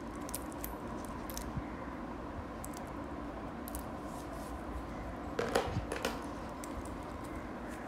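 Stainless steel watch bracelet and clasp being handled, giving a few light metallic clicks in the first second or so. A louder short clatter of handling comes about five and a half seconds in, over a steady room hum.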